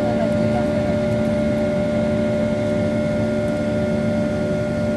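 Cabin noise of a Boeing 737-800 under jet power: the CFM56-7B turbofans give a steady drone with several constant whining tones over a rushing hum.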